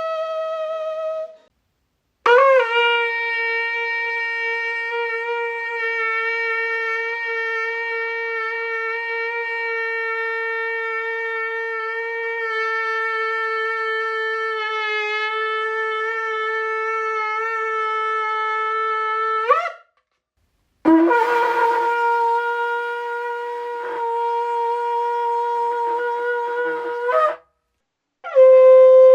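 Shofar blasts, one after another at slightly different pitches: the end of one long note, then a very long steady blast of about seventeen seconds that breaks upward at the start and rises in pitch as it ends, then a shorter, breathier blast, and another starting near the end.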